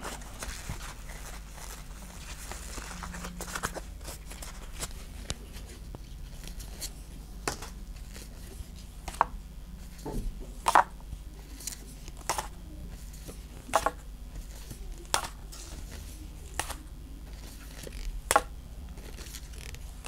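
Pokémon trading cards being flicked through one by one in gloved hands: a light rustle of card stock, with a sharp snap of card on card about every second and a half in the second half, over a low steady hum.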